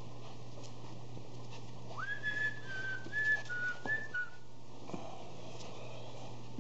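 A person whistling to call puppies: a quick upward slide into a few short stepping notes, starting about two seconds in and lasting about two seconds.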